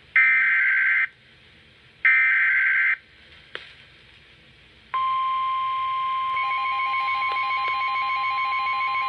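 Emergency Alert System signalling from a National Weather Service warning broadcast: two one-second bursts of warbling SAME digital header data, with a click between them and the tone. About five seconds in, the long steady warning alert tone begins, and a second, pulsing beep joins it a second or so later.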